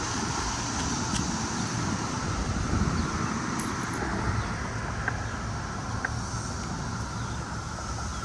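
Road traffic passing through an intersection, a steady rush of tyres and engines with some wind on the microphone. A few faint short ticks sound over it.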